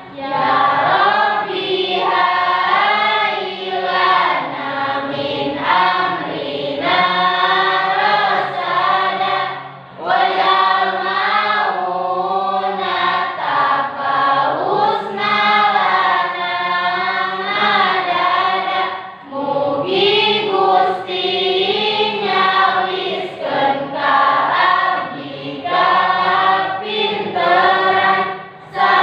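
A class of high-school students singing together in chorus, many young voices in unison, with brief breaks between phrases about ten and nineteen seconds in.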